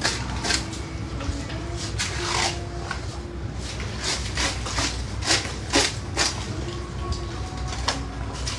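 A knife cutting into a large arapaima, giving a string of irregular crunching, scraping strokes as the blade saws through the fish's hard, heavy scales and skin.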